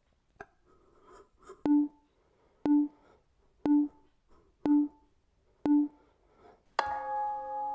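Workout interval timer counting down: five short beeps one second apart, then a longer ringing tone about seven seconds in that marks the end of the exercise interval.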